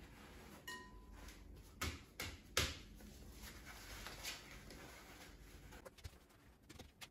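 Paper towel crinkling and rustling as it is pressed over thin-sliced zucchini on a cutting board. A few faint sharp rustles come about two seconds in.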